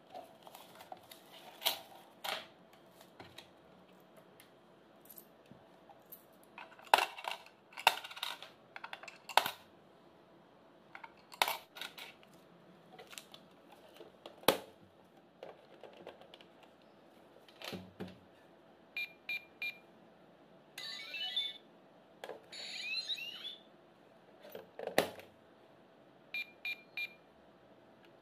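Plastic toy ATM piggy bank being handled: clicks, knocks and rustles as notes are pushed in and its door is shut. Later its keypad gives three short electronic beeps twice, with a brief wavering electronic sound from the toy between them.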